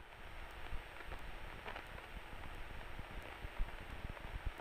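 Low, steady hiss of a light aircraft's headset intercom, with the taxiing plane's engine heard only faintly beneath it.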